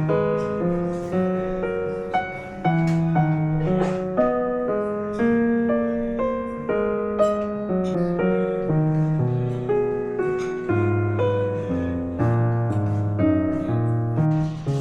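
Background instrumental music, a piano playing a steady run of notes.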